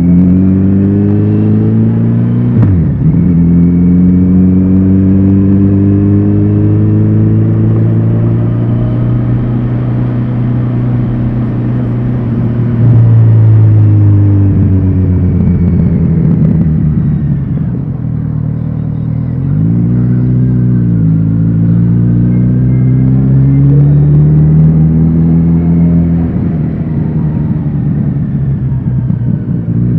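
Kawasaki Z900RS's inline-four engine and exhaust while riding. The pitch climbs and drops suddenly at gear changes, falls as the throttle eases, and has a short blip of revs about two-thirds of the way through.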